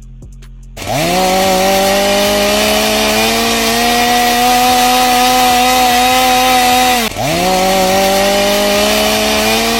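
Chainsaw revving up and running at a high, steady pitch. It drops off sharply about seven seconds in, then revs straight back up.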